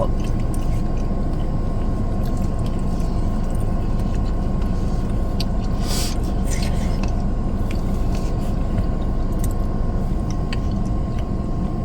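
Steady low rumble of an idling car heard from inside the cabin, with a few faint clicks and crunches of chewing food.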